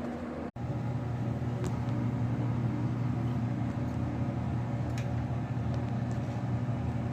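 Steady low mechanical hum of a running motor or engine, with a brief dropout about half a second in.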